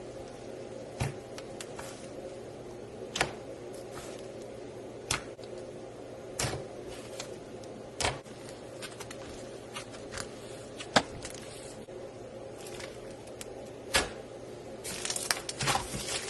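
Slime being handled, giving scattered sharp clicks and pops every second or two over a steady low hum, then a quick run of crackling near the end.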